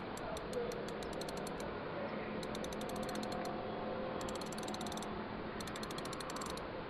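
A night insect ticking in trains of sharp clicks over a steady hiss. Some trains run at about six ticks a second, and two dense bursts of rapid clicks come about four and six seconds in.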